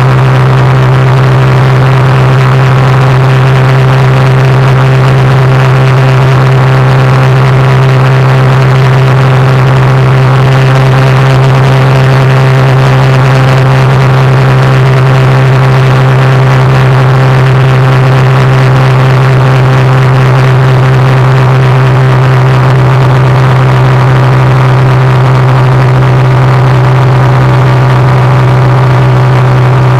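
100cc motorcycle's single-cylinder engine running at a steady high speed, a constant unchanging drone over a rush of noise.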